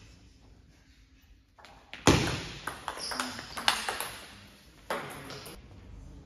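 Table tennis rally: the ball clicking off the bats and the table in quick succession, starting with a sharp hit about two seconds in.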